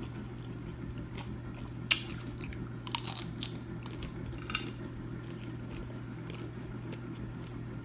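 Close-up eating of crunchy fried food: bites and chewing with a few sharp crackling crunches, the loudest about two seconds in and a cluster around three seconds, over a steady low hum.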